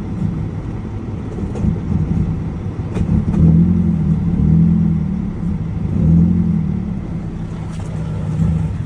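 2012 Mazda 3 Skyactiv four-cylinder engine idling roughly, its speed surging up and sagging unevenly. Near the end its note drops away as the engine stalls.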